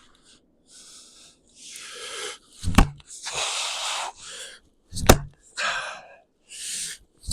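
Fiskars splitting axe striking a round of firewood twice, about two seconds apart, with a third blow right at the end; the round is thought to be frozen, so the axe bounces rather than splitting it. Hard breathing follows each swing.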